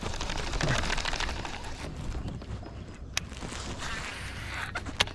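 Handling noise from the angler's gear and sleeve close to the microphone: a rustling rush, then two sharp clicks about three and five seconds in.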